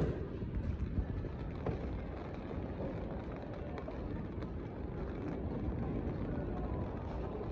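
Outdoor street ambience on a wet pavement: a steady low rumble with wind buffeting the phone's microphone, and a few faint ticks.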